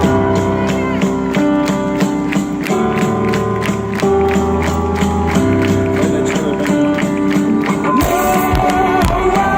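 Live band playing an instrumental passage through a stadium sound system: sustained chords over a steady beat with tambourine. About eight seconds in the music shifts, and a heavier low end comes in.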